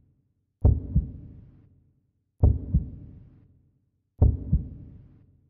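Heartbeat sound effect for suspense: three low double thumps (lub-dub), about one every 1.8 seconds, each dying away.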